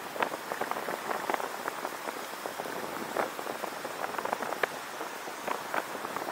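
Steady hiss of a car on the move, with many irregular light ticks and crackles over it.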